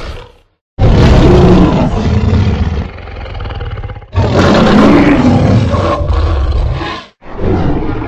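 Custom Godzillasaurus monster roar sound effect, built from layered, slowed-down animal and dinosaur roars: two long, loud roars in a row, then a third starting near the end.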